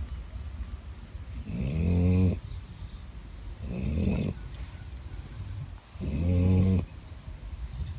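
Sleeping dog snoring loudly: three long, rasping snores about two seconds apart.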